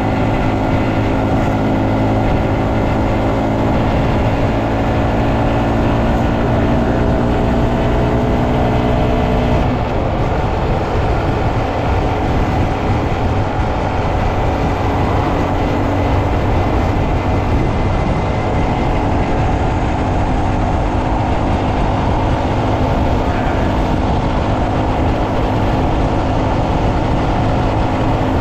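Honda Monkey's 124 cc single-cylinder engine running at cruising speed, with wind rushing past. The engine note climbs slowly for about ten seconds, then drops and settles into a rougher, steady drone.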